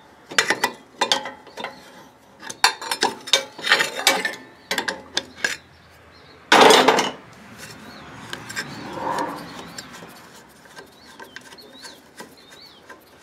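Steel adjustable wrench clinking on the large pulley nut of a Huskee LT4200 riding mower as the nut is worked loose: a quick run of sharp metal clinks, then one louder clatter about six and a half seconds in, with lighter rubbing and handling sounds after.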